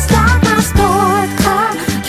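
Background pop song with a woman's sung melody, a steady bass line and a beat.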